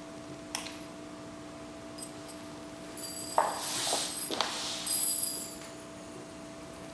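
High-voltage arc inside an incandescent light bulb, fed by a ZVS-driven homemade flyback transformer: from about three seconds in, a sharp crack and then about two and a half seconds of sizzling, crackling arcing with a high-pitched whine, as the filament burns up. A steady low hum runs underneath, with a couple of faint clicks before the arc strikes.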